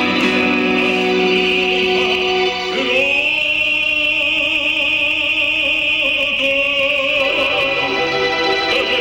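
A man singing in an operatic style into a microphone over instrumental accompaniment, holding a long note with vibrato from about three seconds in until about seven seconds.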